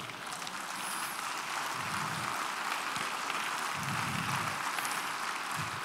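Congregation applauding faintly, the clapping swelling slightly, with a few low voices under it.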